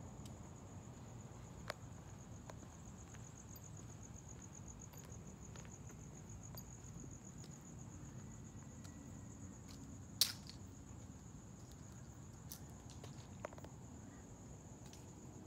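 Crickets chirping in a steady, high-pitched trill, with a few faint clicks and one sharper click about ten seconds in.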